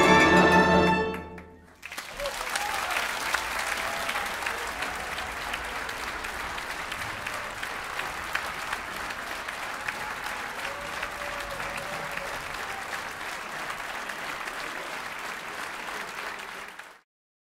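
A concert band's final chord rings out and fades about a second in. The audience then applauds steadily for about fifteen seconds, and the applause cuts off suddenly near the end.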